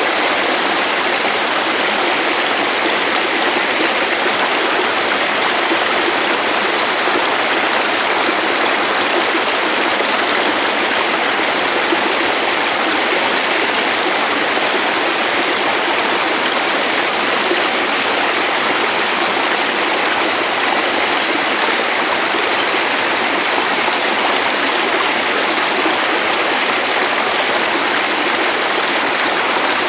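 Stream water rushing, a steady loud hiss with no let-up.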